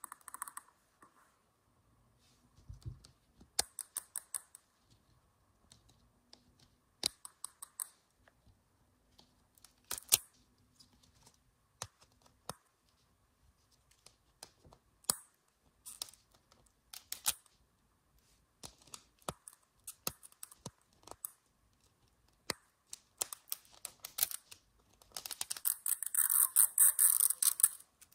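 Fingernails tapping, clicking and scratching on a hard plastic Zuru 5 Surprise Mini Fashion capsule ball while picking at its sticker seal, in scattered bursts of small clicks. Near the end comes a denser scratching stretch of a few seconds.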